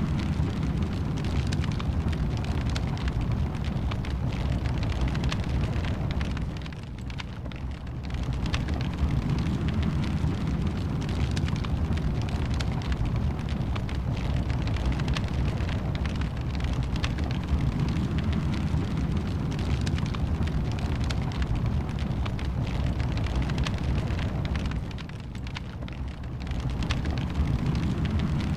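Wood fire burning in a fireplace: a steady low rumble of flame with constant small crackles and pops. The rumble eases off briefly twice, about seven seconds in and again near the end.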